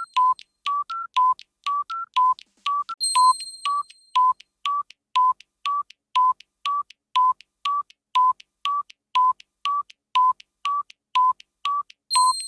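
Clock tick-tock sound effect: an even alternating tick and tock, about two a second, the second of each pair slightly higher in pitch. A short ringing ping sounds about three seconds in and again right at the end.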